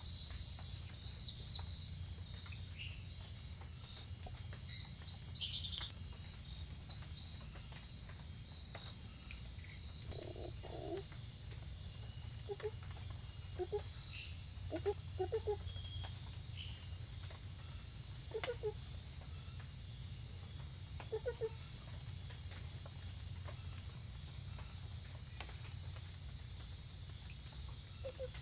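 Banded monkey frog (Phyllomedusa tomopterna) giving short, low calls, single and in pairs, at irregular intervals from about a third of the way in. Behind them runs a steady, high-pitched, rapidly pulsing insect chorus.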